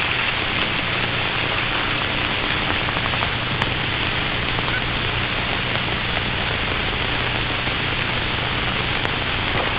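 Steady hiss and low mains hum from an old film soundtrack, with a couple of faint clicks.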